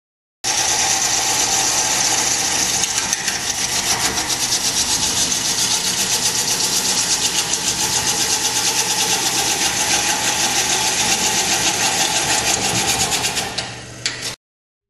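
Home-built wood lathe running while a hand-held gouge cuts a spinning wooden blank: a loud, steady hiss of tool on wood over the motor's hum, with a rapid pulsing. It starts just after the beginning, then tails off and stops shortly before the end.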